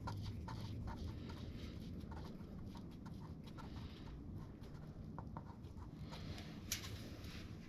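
Faint scattered ticks and scrapes of a Harley-Davidson Sportster's primary/transmission drain plug being spun into the case by hand, with one sharper click near the end.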